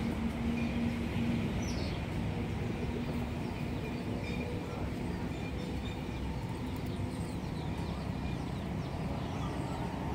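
Steady low outdoor background rumble with a faint hum in the first second or so, and a few faint, short, high bird chirps scattered through it.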